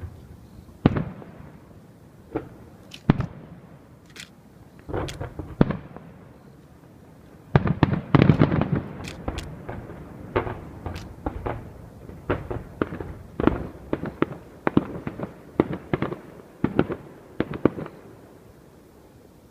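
Fireworks shells bursting in an irregular series of sharp bangs, with a dense cluster of overlapping bangs about eight seconds in and a quick run of bangs that stops shortly before the end.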